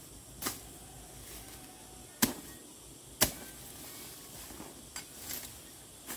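A series of sharp knocks at uneven intervals, about five in all, the loudest two a second apart in the middle.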